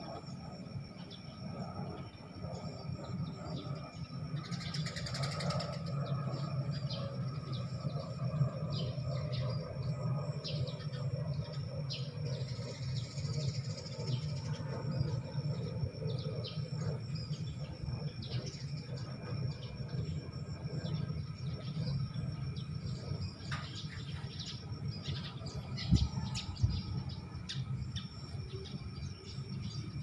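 Eurasian tree sparrows chirping in many short, repeated calls over a steady low background rumble, with a single low thump near the end.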